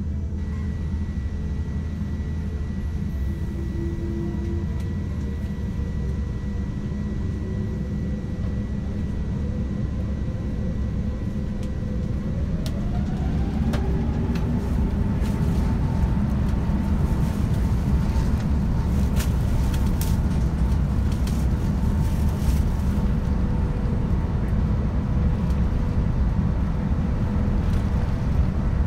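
Airbus A350-900's Rolls-Royce Trent XWB engines heard from inside the cabin: a low rumble, then a whine that rises in pitch about twelve seconds in as the engines spool up to takeoff thrust. The takeoff roll follows, the engine sound and runway rumble running steadily louder, with scattered clicks.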